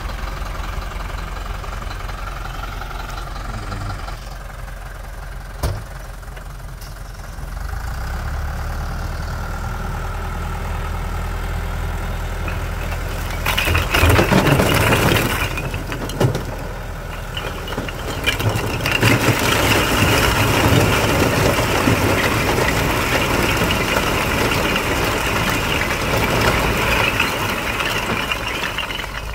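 Thaco Forland dump truck's diesel engine running, its note rising about eight seconds in as the hydraulic hoist lifts the tipper bed. About 13 seconds in, the load of clay bricks starts to shift and clatter, and from about 19 seconds on the bricks pour off the tipped bed with a continuous clattering.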